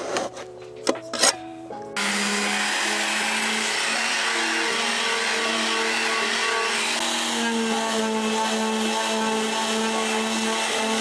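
A few short scrapes of a metal putty knife on a painted surface, then an orbital sander running steadily from about two seconds in, with background music underneath.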